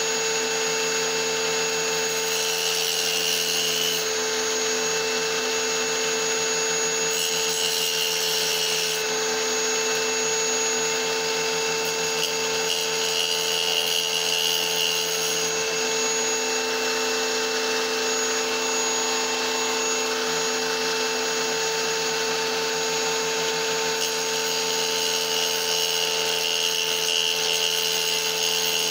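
Electric tile saw running steadily with a motor whine as a small piece of petrified wood is pressed against the blade. A harsher grinding swells and fades several times as the stone is fed into the cut.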